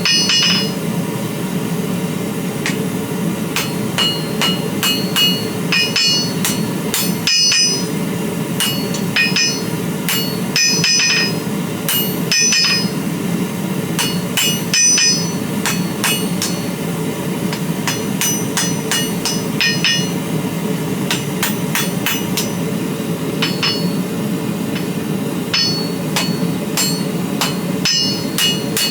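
Blacksmith's hammer striking steel on an anvil while forging a BBQ fork, in runs of quick blows with short pauses between them, each blow ringing. A steady low rush runs underneath.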